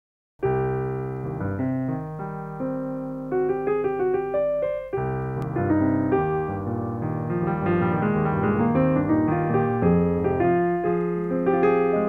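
Piano music: slow chords under a melody line, the notes ringing and fading, with a short break about five seconds in before the next phrase.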